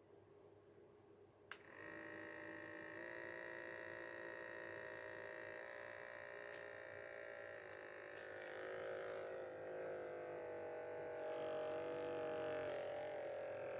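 A button click, then the small electric pump of an automatic blood pressure monitor whirring steadily as it inflates the arm cuff. Its pitch edges up a little about a second later and wavers from the middle on as the cuff pressure builds.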